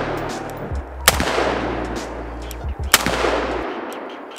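AR-style rifle firing 5.56 rounds as slow, aimed single shots: three shots about two seconds apart, the last right at the end, each followed by a rolling echo.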